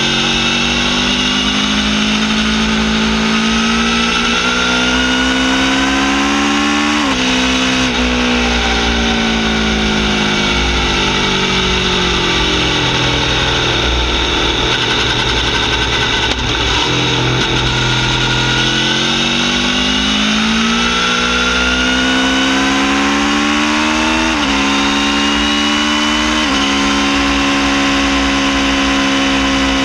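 Aprilia Tuono V4 R's V4 engine through a full titanium Akrapovic Evo exhaust with carbon-fibre can, riding under load. The pitch climbs steadily as it accelerates and drops sharply at an upshift about seven seconds in. It then falls away slowly for about ten seconds as the throttle is rolled off, and climbs again with two quick upshifts a couple of seconds apart in the later part.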